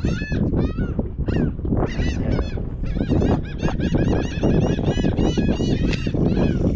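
Birds giving a rapid, continuous run of short honking calls, many each second, over a steady low rumble.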